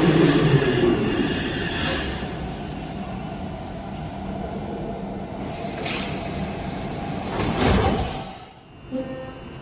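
Metrowagonmash 81-series metro train coming to a stop at the platform: its motor whine falls in pitch, and the running rumble fades away. About seven and a half seconds in, its doors slide open with a sharp clatter.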